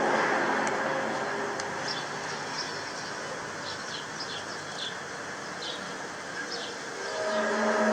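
A staged 'strange sky noise' drone, a YouTube recording played through laptop speakers, fades out over the first couple of seconds and comes back as a low steady hum near the end. In between is a steady hiss with a few small birds chirping.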